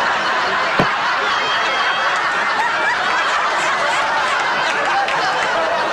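Sitcom studio audience laughing, a steady wash of many people's laughter that holds without a break.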